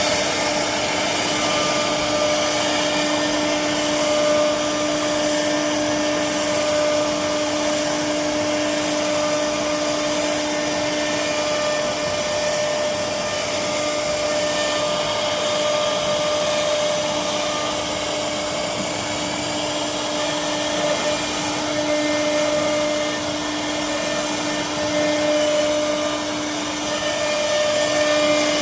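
CNC engraving machine running steadily while it cuts out a name: a constant motor hum with one high steady tone over a hiss, level and unchanging throughout.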